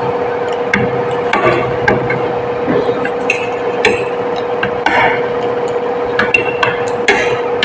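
Metal forks and spoons clinking and scraping on plates during eating, with irregular sharp clicks, over a steady hum.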